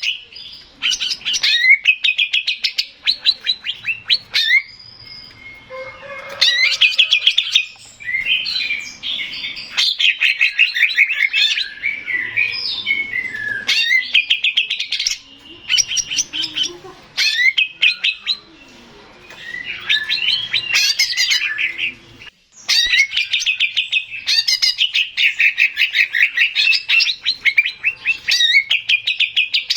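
Male cucak ijo (green leafbird) singing: a high, fast chatter of rapid notes in phrases of one to a few seconds, with short pauses between them.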